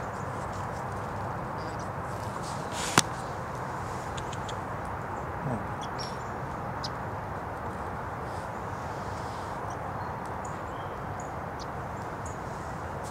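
Steady outdoor background noise, an even low rush, with a single sharp click about three seconds in and a few faint, short high ticks scattered through.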